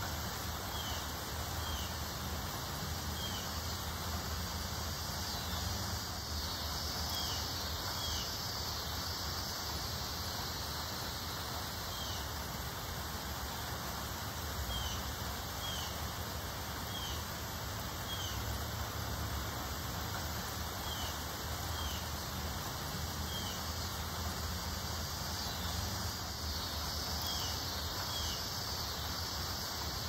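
Steady rustle of wind through leafy trees with a low rumble, and a small bird giving short high chirps every second or two.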